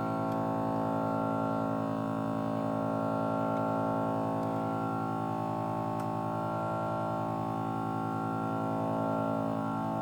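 Background music: a sustained synthesizer drone with slowly sweeping, phasing tones.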